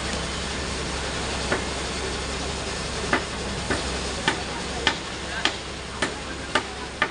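A series of sharp knocks, one about a second and a half in and then a regular run of about two a second through the rest, over a steady background hum of outdoor noise.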